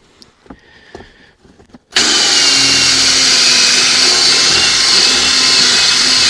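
Faint light clicks, then about two seconds in an electric drill fitted with a step drill bit starts suddenly and runs at a steady high speed with an even whine, drilling out the hole in the cigarette-lighter mounting plate.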